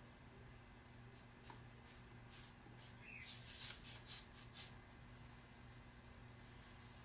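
Faint swishes of a large flat brush stroking acrylic paint across a canvas: a string of short strokes, thickest in a quick flurry about halfway through, over a low steady hum.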